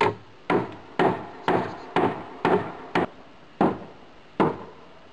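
Hammer blows, struck about twice a second and then further apart near the end, nine in all, each with a short ringing tail.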